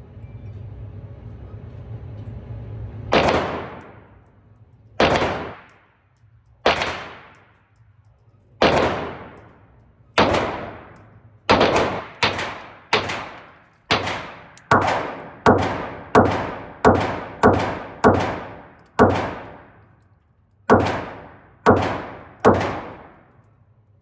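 Firearm shots, about nineteen in all, each echoing briefly. They come slowly at first, quicken to roughly one shot every 0.7 seconds in the middle, then end with three more spaced shots.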